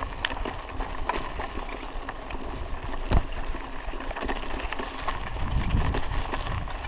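Mountain bike rolling over a rough dirt track: tyres crunching on sand and gravel, with a low rumble and frequent clicks and rattles from the bike's parts, and a sharper knock about three seconds in.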